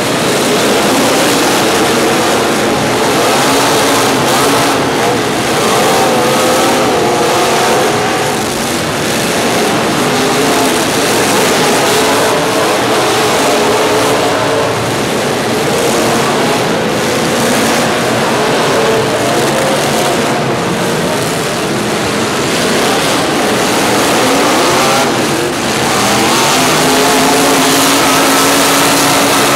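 Several motor vehicle engines running and revving together, their pitches rising and falling throughout.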